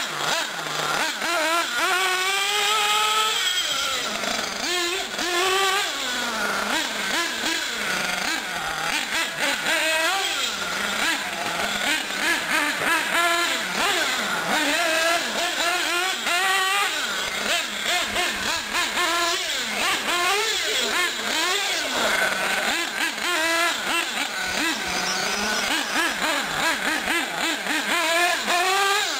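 A nitro R/C car's small glow-fuel engine revving up and dropping back again and again as it laps the track. Its pitch climbs and falls with each burst of throttle.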